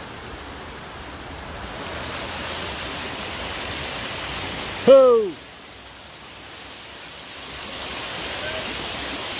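Stream water rushing steadily, with one short, loud call about five seconds in that falls in pitch.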